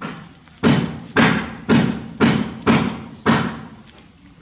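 A run of loud thuds: a softer one at the start, then six sharp ones about half a second apart, each dying away quickly.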